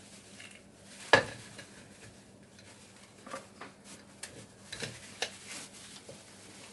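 Hinged wooden lemon squeezer being worked over a plastic blender jar as a lemon is pressed: one sharp knock about a second in, then scattered lighter clacks and taps.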